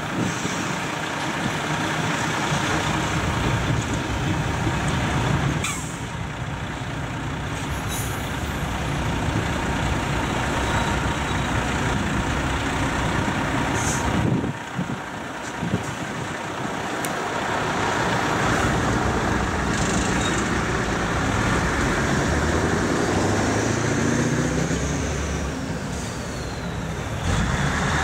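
Freight wagons rumbling and clattering over a level crossing, with short sharp clanks, until the end of the train passes about halfway through. Then a waiting heavy lorry's diesel runs, air brakes hiss, and near the end lorries pull away across the tracks.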